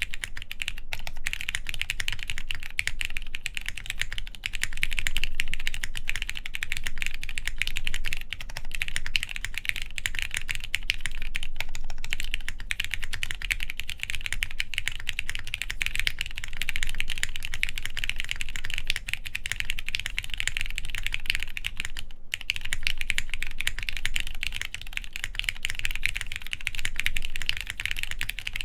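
Continuous fast typing on a plateless mechanical keyboard with lubed Cherry MX Black linear switches and PBT keycaps: a dense stream of keystrokes, with one brief pause about three quarters of the way through.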